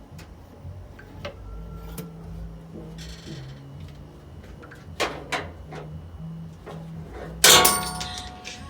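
Metal tools and engine parts knocking and clinking while an intake manifold is taken apart, with two sharper knocks about five seconds in. Near the end comes one loud metallic clang that rings on for about a second.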